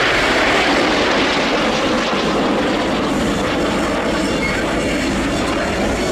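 Lockheed/Canadair CF-104D Starfighter's J79 turbojet running at low power as the jet taxis: a loud, steady jet rush and whine that eases gradually.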